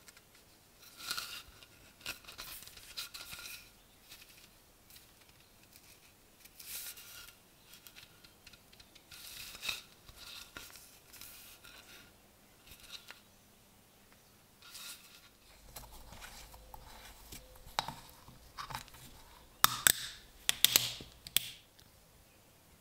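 Short, irregular scraping strokes on wood as the damaged hole in a wooden handle is worked by hand, followed near the end by a few sharp clicks and knocks.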